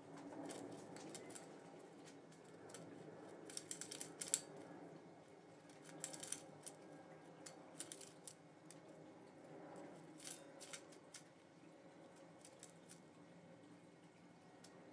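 Young blue tit pecking at mixed seed in a stainless steel bowl: faint, irregular sharp clicks, some coming in quick runs.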